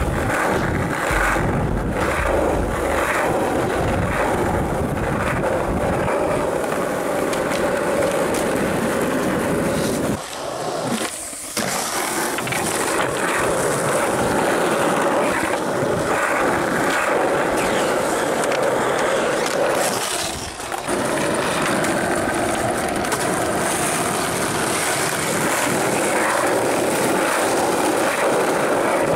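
Skateboard wheels rolling over rough asphalt and concrete, a steady rumble that drops out briefly twice, about ten and about twenty seconds in.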